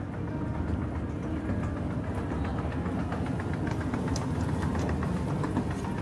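A train running past: a steady low rumble with faint clicks and rattles throughout.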